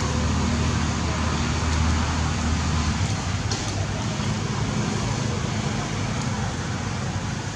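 Steady background noise throughout: an even hiss over a low, constant hum.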